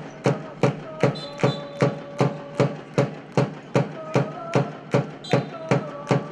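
A drum beaten in a steady beat, about two and a half strikes a second, with a crowd of voices chanting along between the strikes: supporters' cheering in an indoor arena.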